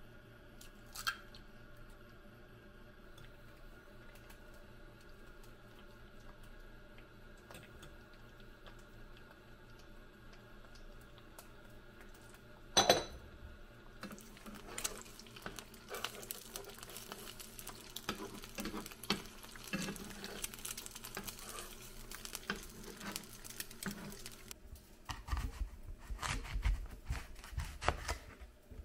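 Eggs frying in a nonstick pan. At first there is only a quiet steady hum; a sharp knock comes a little before halfway, and after it a crackling sizzle full of small pops. Near the end come low thumps of a knife cutting through an apple onto a cutting board.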